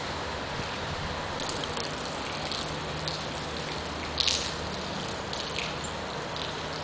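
Steady hiss of water, rain or running floodwater, with scattered small drips and splashes and one louder splash about four seconds in.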